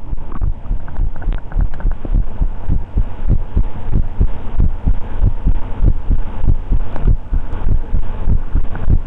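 A man's heartbeat, recorded close up: a steady rhythm of low, dull thumps.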